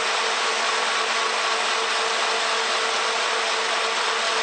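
Electric stand mixer running steadily at medium speed, beating mascarpone: an even motor whir with a faint steady hum.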